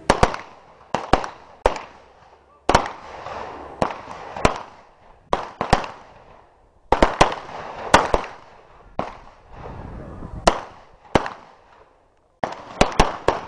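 Handgun shots from several shooters firing at once: many sharp cracks at irregular intervals, some in quick pairs and clusters, each with a short echo.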